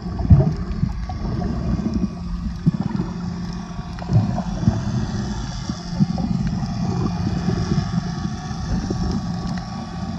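Muffled underwater sound from a snorkeler's camera held below the surface: water rushing and knocking against the camera, with irregular low thumps over a steady low hum.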